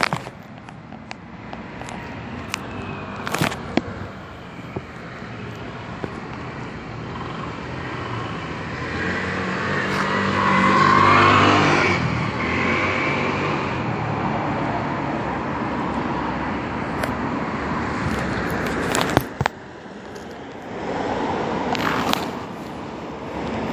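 Road traffic noise, with a motor vehicle passing, loudest a little past the middle. A few sharp knocks stand out near the start and near the end.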